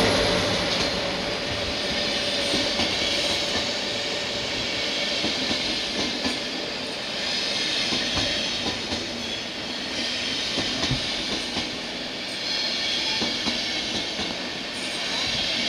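Deutsche Bahn InterCity coaches rolling past along the platform: a steady rumble of wheels on rail with scattered clicks over the rail joints and a faint wheel squeal.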